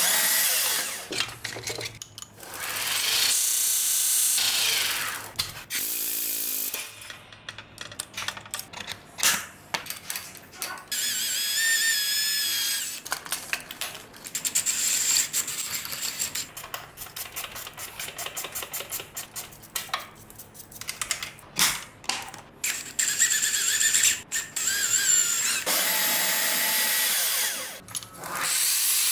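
Several separate runs of shop power tools working a small metal plate: a Milwaukee portable bandsaw cutting through the plate, and a belt grinder dressing its edges near the end. Between the runs the part and tools are handled with knocks and clatter.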